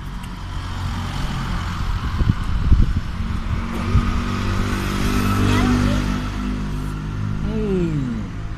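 A motor vehicle engine running close by, its low steady drone holding through, with a falling pitch sweep near the end as it changes speed. A few knocks sound about two to three seconds in.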